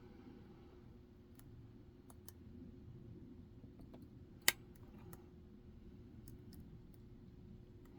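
Faint, scattered metallic clicks and ticks of a lock pick and tension tool working the pins inside a Medeco cylinder, with one sharper click about halfway through, over a low steady hum.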